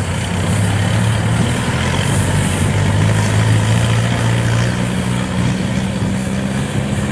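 Kubota DC-95GM combine harvester working under load while cutting and threshing rice: a steady diesel engine drone over a continuous noisy rush from the machine. The engine note shifts slightly about five seconds in.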